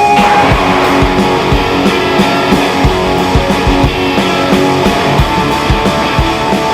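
Trailer music: rock with guitar over a steady drum beat.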